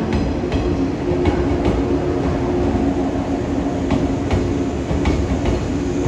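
JR West 117 series electric train rolling slowly into the station: a steady rumble and hum, with the wheels clicking in pairs over rail joints several times.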